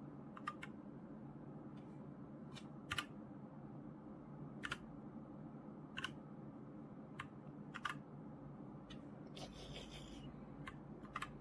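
Single key presses on a Royal Kludge RK96 mechanical keyboard: about ten separate clicks, spaced irregularly a second or so apart, with a brief rustle a little before the end.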